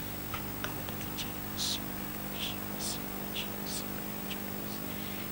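A woman whispering a prayer into a handheld microphone: short soft hisses of breath and sibilants every half second or so, over a steady low electrical hum.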